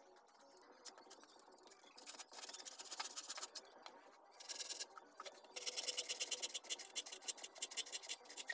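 Hand saw cutting through a wooden board: a few short runs of strokes in the first half, then steady back-and-forth sawing over the last few seconds. One sharp click about two seconds in.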